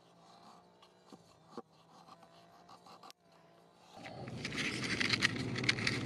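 Knife blade shaving curls off a wooden stick to make a feather stick, with faint scrapes and a few sharper clicks. After a brief break, a much louder, dense crackling rustle starts about four seconds in.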